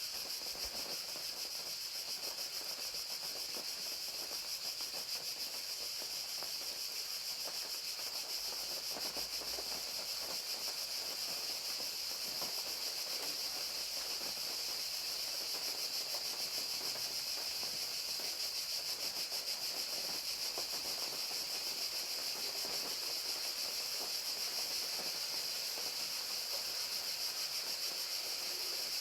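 Crickets chirping in a steady, high, rapidly pulsing trill, over the even hiss of rain falling.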